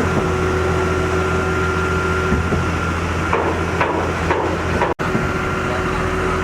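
Heavy construction machinery engine running steadily, with a few short knocks a little past the middle. The sound drops out for an instant at an edit cut about five seconds in.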